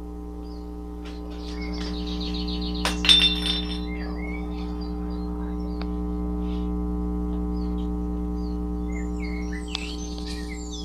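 Steady electrical mains hum, with a short clinking clatter about three seconds in and faint scattered chirps.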